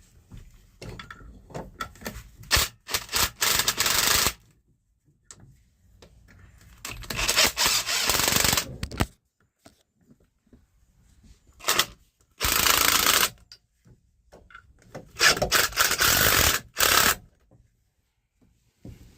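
Hand-tool work on a loader's joystick assembly: four bursts of rasping, rattling scraping noise about a second or two long, with scattered small clicks and knocks between them.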